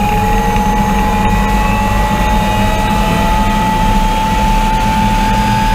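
Gas-turbine engine of the MADMAX turbine motorcycle whining at full throttle, its pitch rising slowly as the bike accelerates, over a low rumble of wind and road.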